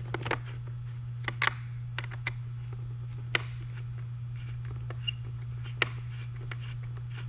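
Scattered small metallic clicks and taps of an Allen key working the bumper bolts, the sharpest about three and a half and six seconds in, over a steady low hum.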